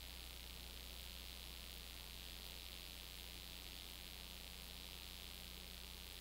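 Steady hiss with a low electrical hum underneath, unchanging throughout: the noise floor of a silent 8mm home-movie transfer, with no other sound.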